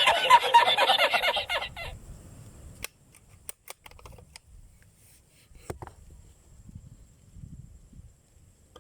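Faint clicks and handling of a pump-action airgun, then a single sharp shot from it right at the end.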